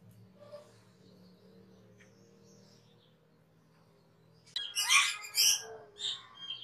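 Asian glossy starling calling: faint scattered chirps at first, then from about four and a half seconds in a loud, rapid run of short, squeaky whistled notes with quick rises and falls in pitch.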